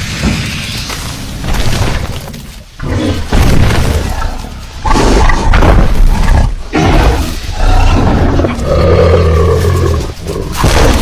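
Giganotosaurus creature sound effects: a string of loud roars and growls, several in a row with short breaks between them.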